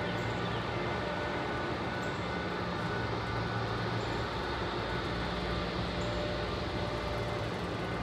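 Steady rumbling noise with a low hum underneath, unchanging throughout.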